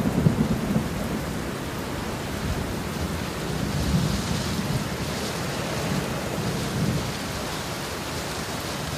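Heavy rain pouring down in a thunderstorm, with low rumbles of thunder that are loudest at the start.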